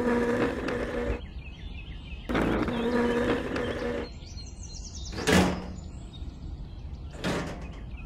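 A small motor whirring in two short bursts of about a second and a half each, with pauses between. A sharp clack comes about five seconds in and a fainter one near the end, and birds chirp in the pauses.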